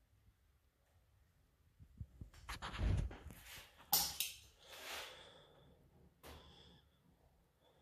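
Caulking gun squeezing clear silicone sealant into the seams of a resin-pour mold: a few short noisy squirts and gun noises from about two to five seconds in, with a sharp click near the middle and one more brief burst near the end.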